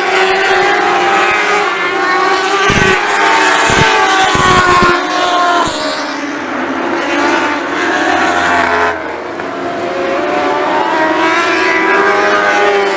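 A pack of lightning sprint cars racing, their 600cc motorcycle engines revving high, with the pitch rising and falling as several cars lap and pass. A few brief low thumps come about three to five seconds in.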